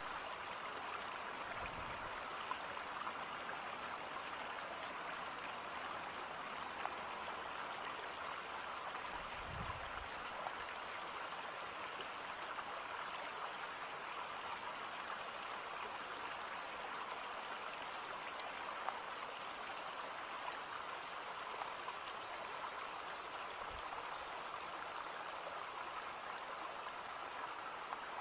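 Steady, even rush of moving water with a faint hiss, and a couple of soft low bumps about two and ten seconds in.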